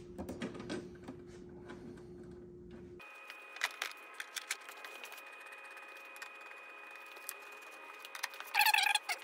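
Small metal clicks and taps of a driver and bolts as the windshield hardware is started into the motorcycle fairing, over a steady hum that changes abruptly about three seconds in. A louder rattling burst comes near the end.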